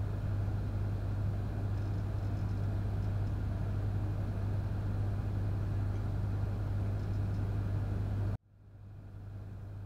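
Steady low electrical hum of fluorescent ceiling lights, a mains buzz with a faint noisy hiss above it. It cuts off suddenly near the end, and a much quieter hum swells back in.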